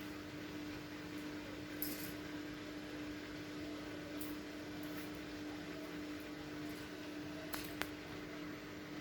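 Washing machine running on a test cycle with a steady hum, plus a few light clicks about two seconds in and near the end.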